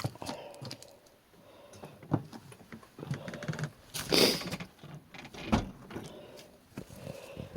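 Scattered light knocks and rustles from moving about and handling things in a cluttered room, with one louder rushing sound about four seconds in.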